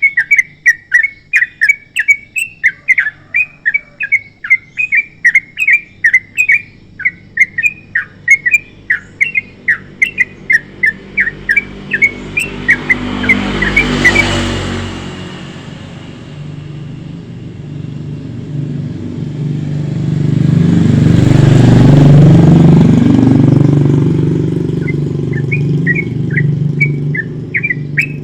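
A yellow-vented bulbul (trucukan) sings a fast, continuous run of short chirped notes. About halfway through, a motor vehicle passes and cuts the song. A second, louder vehicle passes about three-quarters of the way in, and the chirping starts again near the end.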